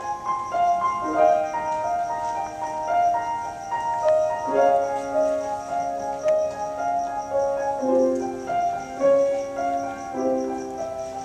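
Piano playing the introduction to a choral song: a steady succession of sustained chords and single notes, with a new chord change every half second or so.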